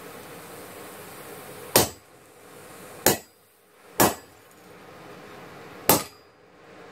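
Hammer striking the head of a handled hot-cut chisel four times, unevenly spaced, driving it into a red-hot steel knife blank on an anvil: sharp metallic blows over a steady hiss.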